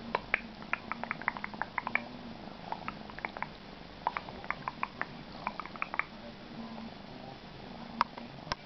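Siberian kitten purring steadily, with a scatter of short, sharp clicks over the purr, the loudest about eight seconds in.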